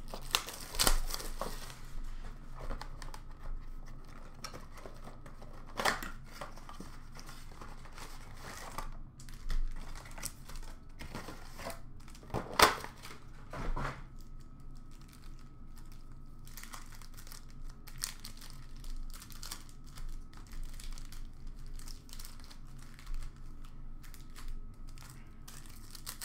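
2016-17 Upper Deck Series 1 hockey card packs being torn open by hand: wrappers crinkling and ripping as the cards are pulled out and handled. The rustles come unevenly, with the sharpest rips about a second in and around halfway.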